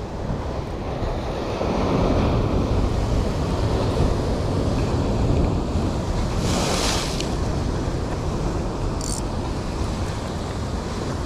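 Surf breaking and washing over shore rocks, with wind rumbling on the microphone. A brief hiss comes about six and a half seconds in, and a shorter, higher one about nine seconds in.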